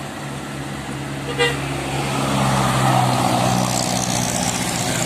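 A bus drives past, its engine running and growing louder, loudest about three seconds in, with a brief toot about a second and a half in.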